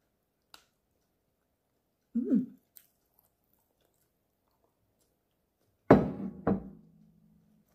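Close-up eating sounds: a faint chopstick click, a brief low murmur while chewing rice, then near the end two heavy thunks half a second apart as a ceramic rice bowl is set down on the table, trailed by a low hum.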